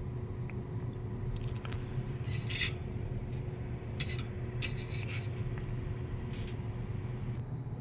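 A steady low hum with short, scattered scraping and rubbing noises of small objects being handled.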